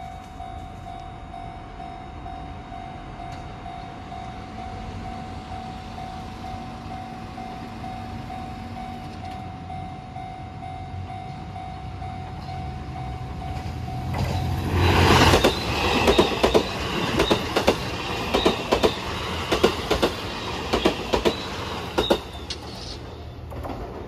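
A Japanese level-crossing warning bell rings in a steady, pulsing repeated tone while the train approaches. About halfway through, a JR HC85 hybrid diesel-electric express train passes loudly over the crossing, its wheels clacking in a quick regular rhythm over the rail joints for several seconds before fading.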